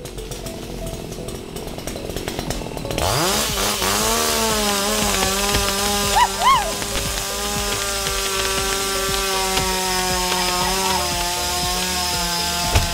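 Chainsaw revs up about three seconds in and then runs steadily at high speed, cutting into the base of a large tree.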